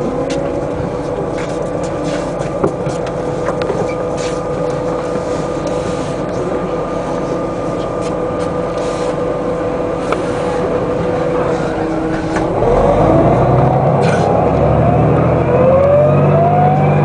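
Den Oudsten Alliance B96 city bus heard from inside, its engine and driveline cruising with a steady whine. About twelve seconds in, the ZF automatic gearbox kicks down: the engine note jumps louder and rises in pitch in two climbs as the bus accelerates hard.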